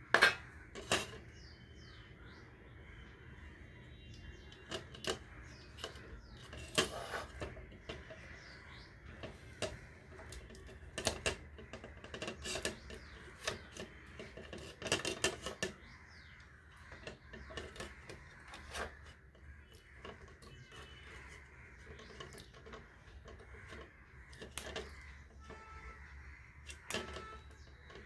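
Irregular light clicks and knocks of small parts and wire being handled on a workbench, over a low steady hum.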